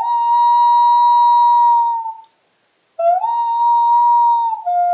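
A woman's voice imitating the wail of a common loon: a long, pure note that slides up and holds for about two seconds, a short break, a second rising held note, then a drop to a lower note near the end.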